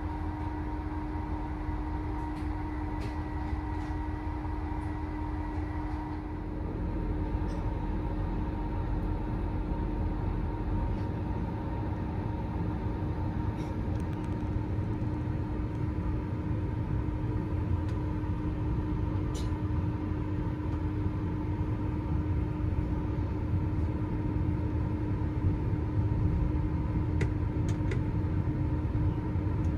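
Overnight sleeper train running, heard from on board: a steady low rumble with a constant hum, growing louder about six seconds in, with a few faint clicks.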